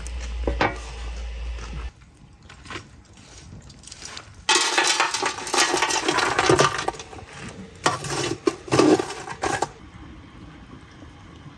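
A metal tray set down over a frying pan with a clank, then hot charcoal embers tipped onto the tray from a scoop, clattering and scraping across the metal for about five seconds, heaped on the lid to bake the cake from above.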